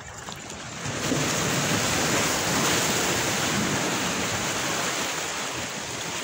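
Steady rush of sea water washing against the shoreline rocks, swelling about a second in and then holding.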